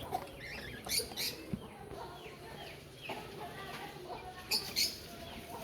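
Chickens clucking and calling in a series of short calls, with a few sharper, louder sounds about a second in and again near the end.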